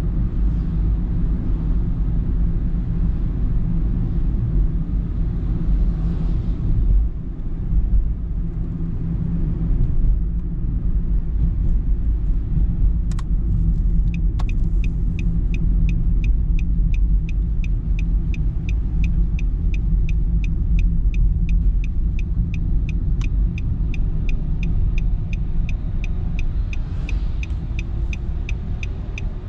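Steady engine and tyre rumble heard inside a moving car's cabin. About halfway through, a couple of clicks come, then a turn-signal indicator starts ticking evenly, about two to three ticks a second, as the car nears a junction.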